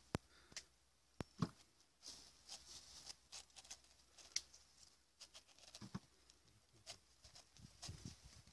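Faint scattered clicks and scratches of a small knife scoring the tough rind of a pomegranate.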